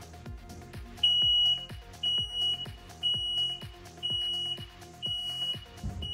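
Engine ECU of a Kawasaki Ultra 250X jet ski engine sounding its loud warning beep: five high, single-tone beeps of about half a second each, one a second, starting about a second in. The beeping is the ECU's low-battery warning, the battery too weak to start the engine. Background music with a steady beat plays underneath.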